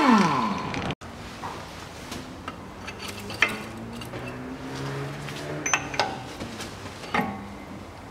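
Scattered light metallic clicks and clinks of a socket and long wrench bar being fitted onto a car's front drive-shaft hub nut, to check its tightness by hand. It opens with a brief falling tone that cuts off about a second in.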